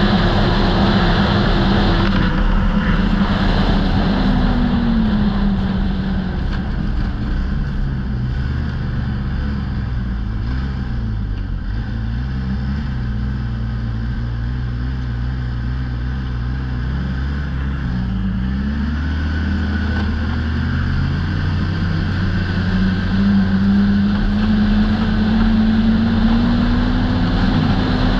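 Turbocharged snowmobile engine of a 2008 Polaris Dragon Turbo, under way on a groomed trail: it drops in pitch as the sled slows, runs low and uneven through the middle with a couple of brief dips, then rises steadily as it speeds up again over the last third. Wind and track noise run under it throughout.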